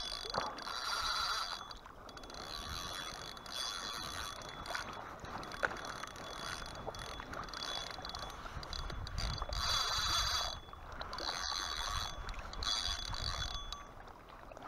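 A spinning reel is cranked to wind in line as the lure is retrieved, and the noise comes and goes in patches every second or two. A jacket sleeve rubs right against the chest-mounted camera's microphone.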